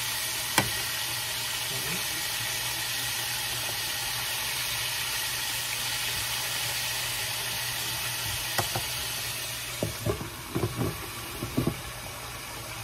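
Chicken pieces frying in hot oil in a skillet: a steady sizzle, with sharp clicks of metal tongs against the pan as the pieces are turned. Near the end the sizzle dips a little and a few knocks and clinks come in quick succession.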